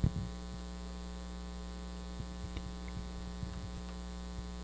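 Steady electrical mains hum in the audio system, with one sharp thump right at the start and a few faint knocks and clicks scattered later on.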